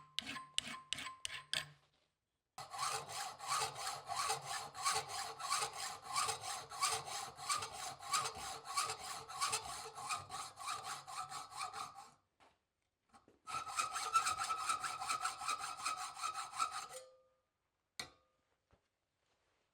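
A hand file worked in rapid, even strokes across a steel knife blade. The metal rings faintly with each stroke, and the filing comes in three runs with short pauses between them.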